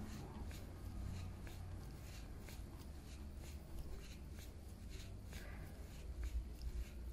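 Faint, regular clicking, about two clicks a second, as a hand driver turns an orthodontic mini-implant screw into the jawbone, over a low steady hum.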